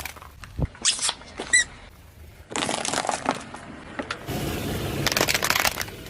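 Things being crushed under a car tyre: a sharp crack, a short high squeak, then stretches of crunching and dense crackling.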